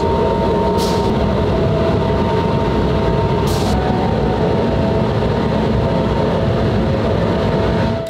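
Metal-melting furnace running at full fire, a loud, steady rumbling rush with a faint steady whine through it. Two brief hisses come about a second in and about three and a half seconds in.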